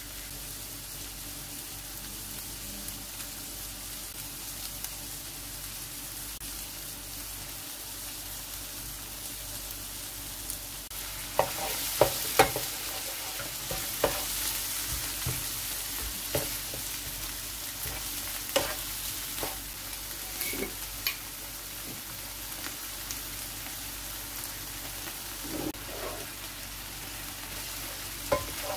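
Chicken, eggplant and chillies sizzling in a nonstick frying pan while being stirred with a wooden spatula that knocks and scrapes against the pan. Partway through the sizzle gets louder and the spatula knocks come more often.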